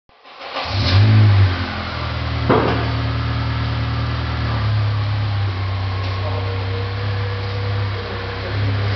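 Honda CR-V's engine heard from behind at the exhaust tips: a brief rise in revs about a second in, then a steady idle drone. One sharp crack sounds about two and a half seconds in.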